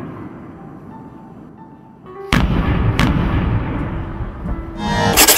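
Fireworks explosions in a logo-intro sound effect: a fading rumble, then two deep booms about two-thirds of a second apart, each with a long rumbling tail, and a dense crackling rush near the end.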